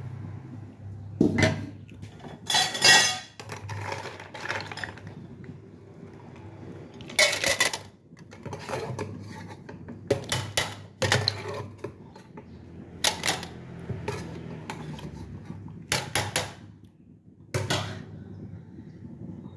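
Apple snail shells being dropped and set into a perforated stainless steel steamer basket, clattering against the steel and each other in irregular clacks, with a low steady hum underneath.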